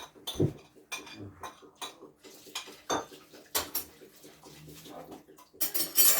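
Cutlery clinking and scraping on plates and dishes during a meal: scattered sharp clinks, with a louder clatter near the end.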